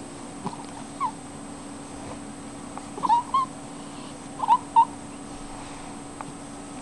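Domestic cat giving a few short, high chirping mews: one about a second in, then two quick pairs around the middle.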